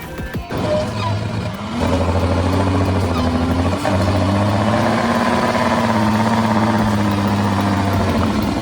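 Heavy haulage truck engine working under load, its pitch climbing about two seconds in and then running steady.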